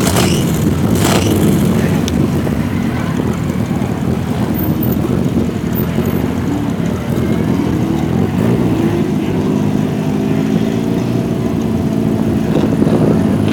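Several race car engines running at idle and light revs, their note climbing slightly over the last few seconds.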